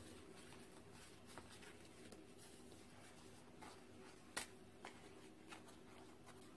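Near silence with faint rustling and crinkling of dry lavash flatbread pieces being laid into a baking dish by hand: a few soft crackles, one sharper one a little past the middle.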